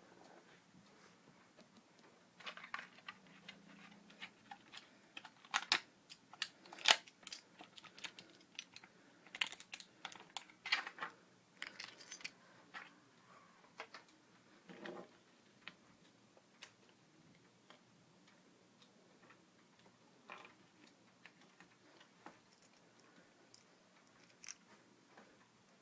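Irregular small plastic clicks and crinkles from a Beyblade spinning top and its packaging being handled and fitted together by hand, busiest in the first half and sparse later.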